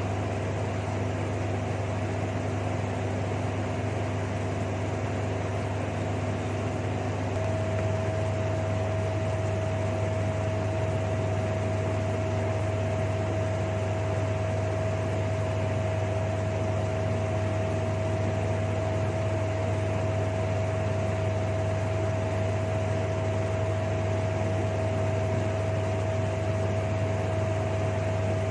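Steady machine hum, like a fan or room appliance, with a constant whine over it that steps slightly higher and louder about seven seconds in.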